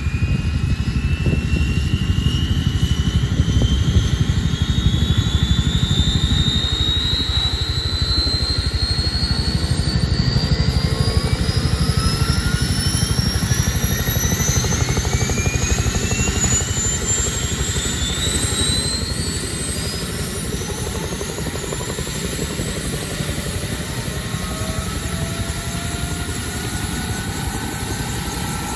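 Turbine engine of a two-bladed Huey-type helicopter spooling up during start-up: a whine rising steadily in pitch over a heavy low rumble from the engine and the slowly accelerating rotor.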